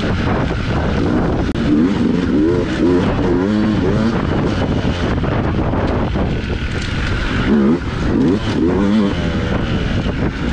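Dirt bike engine revving up and down under load, its pitch rising and falling again and again as the throttle is worked.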